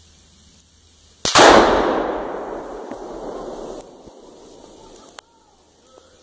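Tannerite exploding-target charge detonating at a tree: one sudden loud blast about a second in, its rumble dying away over the next two and a half seconds.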